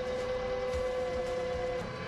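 A machine running with a steady whine over a rapid rhythmic clatter; the whine stops near the end.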